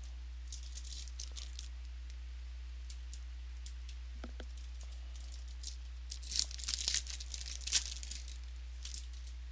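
Trading card pack wrappers and cards being handled: brief crackles near the start, then a louder burst of tearing and crinkling about six to eight seconds in, as a pack is torn open. A steady low electrical hum runs underneath.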